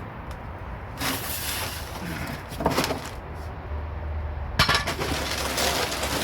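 Cardboard box and packing material rustling and scraping as a heavy new floor jack is pulled out of its box, in several bursts, the longest in the second half.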